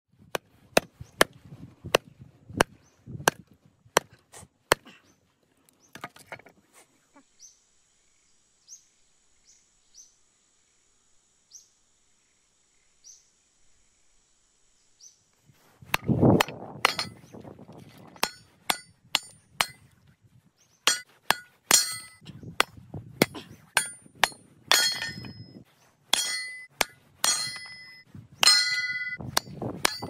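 Splitting firewood with a short-handled sledge hammer and a cast-iron kindling splitter: sharp hammer blows on wood, many with a metallic ring, with wood cracking and split pieces dropping. A run of blows opens the clip, then a quiet stretch of several seconds, then the blows start again at a quicker, denser pace about halfway through.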